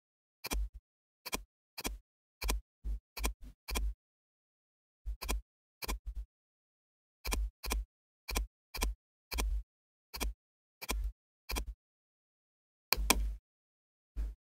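Computer mouse button clicking, about twenty separate clicks at an uneven pace with dead silence between them, pausing twice for about a second.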